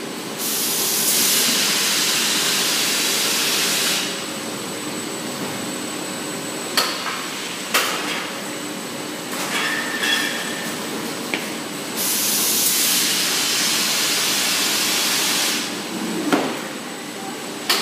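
Automatic fresh-pasta production line running with a steady mechanical drone. Twice it gives a long hiss lasting about three and a half seconds, and in between come several sharp metallic clacks.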